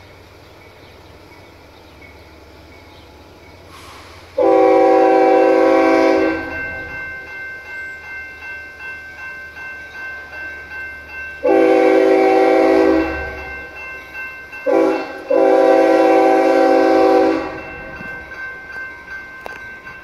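CSX freight locomotive's air horn sounding the grade-crossing signal, several notes together as one chord: a long blast about four seconds in, a second long blast, a short one, then a final long one. Between the blasts a crossing bell rings with a steady beat.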